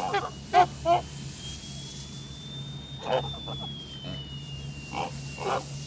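Domestic geese giving short honking calls, three in the first second and more around three and five seconds in, over a steady low hum and a thin high whine that slowly rises and falls.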